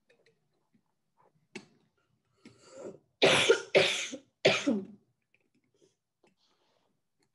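A woman coughing three times in quick succession.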